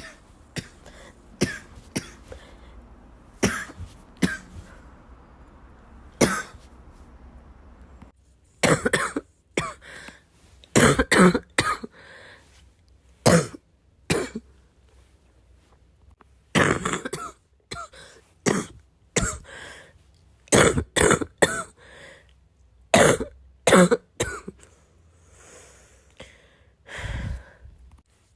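A sick person coughing over and over. It starts as single coughs a second or two apart, then from about a third of the way in comes in bouts of several coughs in quick succession.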